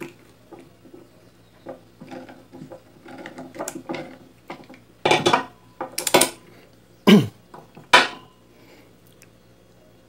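Metal clicks, clanks and scrapes of locking pliers working on an Arno blender motor's shaft, trying to loosen a fitting that was overtightened and is stuck hard, with several louder knocks between about five and eight seconds in.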